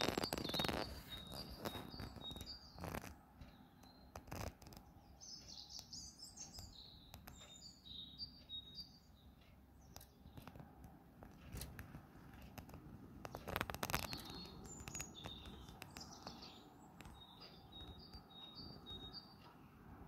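A songbird singing at night in short phrases of high, thin notes and trills, several phrases with pauses between them. A few brief knocks sound in between.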